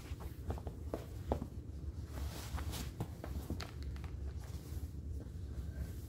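Sneakers and socks being pried and kicked off feet without hands on a wooden floor: rustling and scuffing of fabric and shoe rubber, with scattered light knocks of shoes against the floor.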